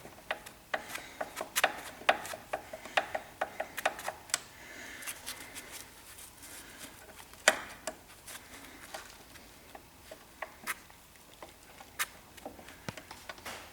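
Irregular clicks and metallic taps of hand tools working the upper ball joint loose on a car's front suspension, quick and close together at first, with single louder knocks about seven and a half and twelve seconds in.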